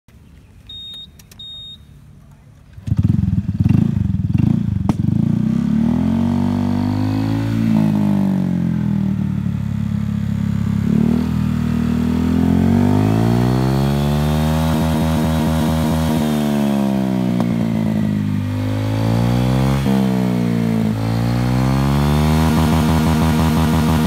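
Two short electronic beeps, then a Honda ADV scooter's single-cylinder engine starts about three seconds in and is revved again and again through a Balera aftermarket racing exhaust, its pitch climbing and dropping back toward idle.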